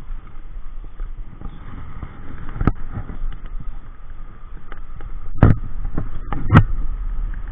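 Steady low rush of a flooded river on the microphone, broken by a few sharp knocks, the two loudest in the last two seconds.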